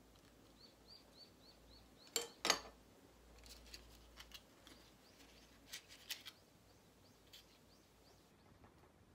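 Two sharp clicks as chopsticks are set down on a glass food container, then light clicks and rustles of dry-fried anchovies being dropped into a stainless-steel lunch box. A small bird chirps faintly and repeatedly, about three chirps a second, in the background.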